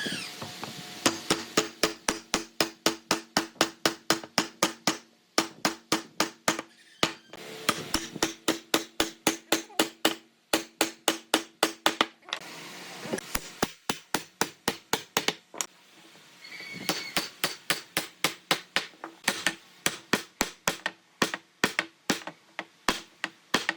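Rapid, even hammering: sharp strikes at about three to four a second in two long runs, with a pause of a few seconds between them.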